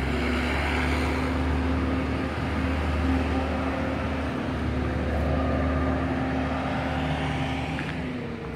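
Steady low mechanical drone with a constant hum, swelling slightly about five seconds in.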